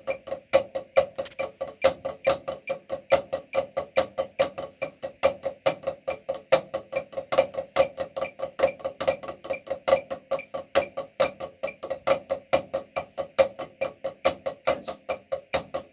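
Two players' drumsticks tapping on a shared practice pad in Moeller-technique exercises: a steady, even stream of stick strokes, several a second, with regularly accented louder strokes among softer ones.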